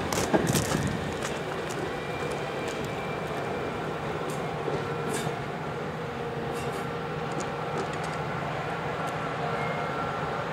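Class 108 diesel multiple unit pulling away along the track, its underfloor diesel engines droning steadily, with a few sharp clicks from the wheels and rails as the cars pass at the start.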